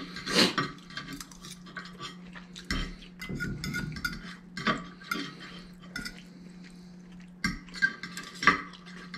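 Metal forks clinking and scraping on ceramic plates as noodles are twirled and lifted, in scattered sharp clicks with the loudest near the start and toward the end.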